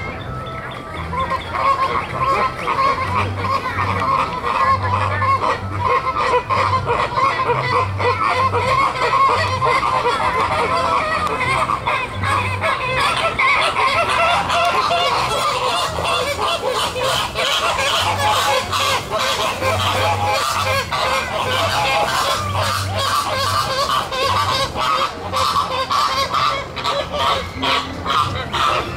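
A flock of Caribbean flamingos honking nonstop, many goose-like calls overlapping into a loud din that swells about a second in.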